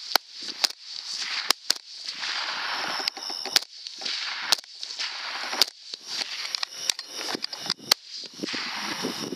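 A string of rifle shots at a group of feral hogs: about a dozen sharp cracks at uneven spacing, over a steady high insect chirr.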